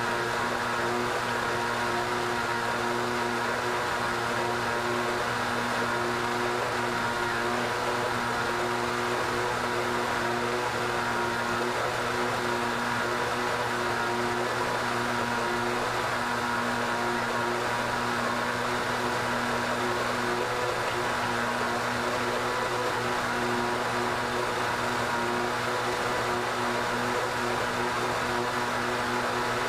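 Blendtec Designer 725 blender running steadily at high speed on its soup cycle, blending a full jar of pea soup: a constant motor whir with a steady hum.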